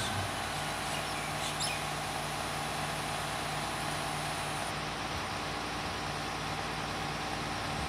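Garbage truck's diesel engine idling steadily at the kerb, with a bird chirping briefly about a second and a half in.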